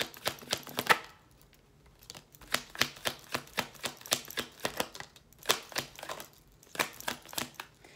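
A tarot deck being shuffled by hand, packets of cards slapping onto the deck in a quick series of sharp clicks, with a pause of about a second near the start.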